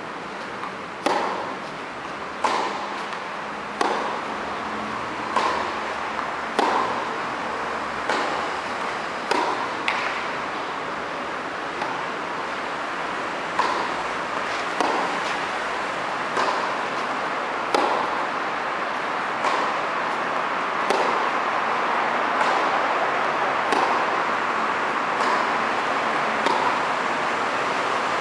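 Tennis ball struck back and forth by racquets in a baseline rally, a sharp hit about every one and a half seconds, over a steady hiss that grows a little louder toward the end.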